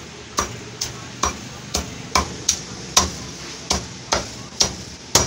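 Cleaver chopping grilled fish on a thick wooden chopping block: about eleven sharp chops, roughly two a second.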